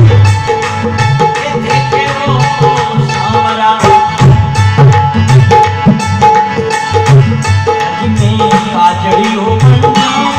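Dholak playing a steady driving rhythm of deep bass strokes and sharper slaps, over sustained harmonium notes in a folk bhajan accompaniment, with no singing.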